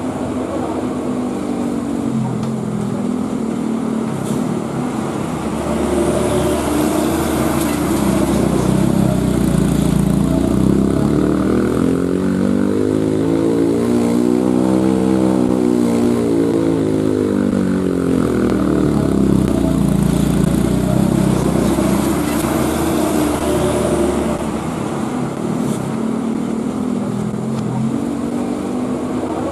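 A heavy truck's diesel engine runs under load as it climbs a steep grade. It gets louder and fuller a few seconds in and eases back near the end.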